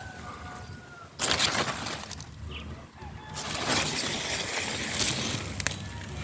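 Chickens scratching and rummaging through compost, making rustling noise in two long spells, with faint short bird calls near the start.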